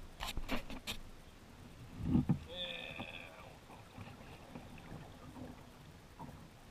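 Kayak being paddled on calm water: light knocks and drips from the paddle near the start and a low thump of a stroke about two seconds in. A brief high call sounds just after it.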